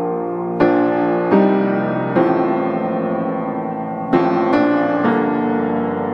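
Background piano music: slow chords struck every second or so, each left to ring and fade before the next.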